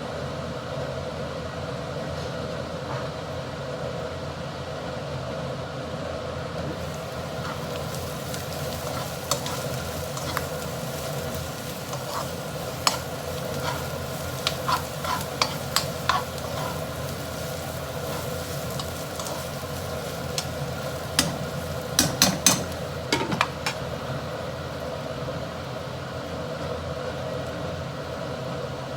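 Udon being stir-fried in a pan: a steady sizzle over a constant hum, with a utensil clicking and scraping against the pan now and then. A burst of loud knocks comes about two-thirds of the way through.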